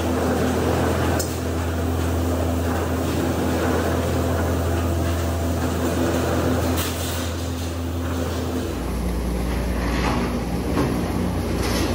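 Steady hum and rumble of running factory machinery, with a few scattered metallic knocks. The low hum changes about nine seconds in.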